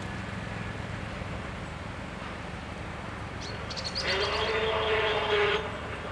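Electric drive of the level-crossing barriers whirring for about a second and a half as the booms start to lift, a steady tone with a broad whir over it. It is preceded by a few short high chirps, over a low steady background rumble.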